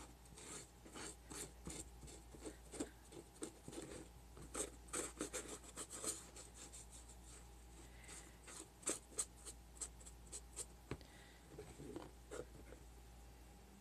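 Paintbrush brushing black gesso onto a papier-mâché-covered cardboard box: faint, irregular scratchy strokes, some in quick runs, over a low steady hum.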